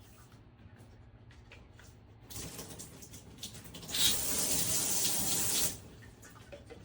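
Water spraying from a handheld shower head: a lighter spray starts about two seconds in, becomes a much louder full spray at about four seconds, and cuts off suddenly just before six seconds.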